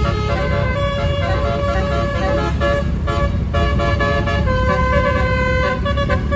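Bus's multi-trumpet musical air horn (telolet/basuri) playing a tune of held notes that step up and down in pitch, with a short break about three seconds in, over a steady low rumble. The tune is pleasant but the horn trumpets sound a little odd, in the uploader's view.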